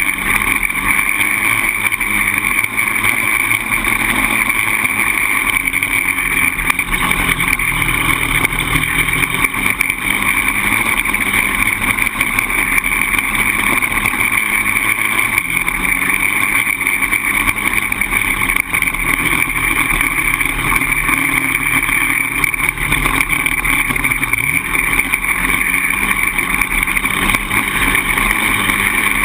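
Polaris Outlaw 525 quad's single-cylinder four-stroke engine running under way, its pitch fairly steady with small rises and falls.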